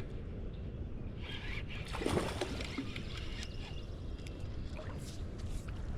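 Wind rumbling on the microphone, with a few scattered light knocks and rustles.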